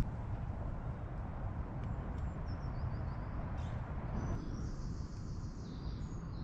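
Low, fluctuating wind rumble on the microphone, with faint bird chirps high above it, most of them in the second half.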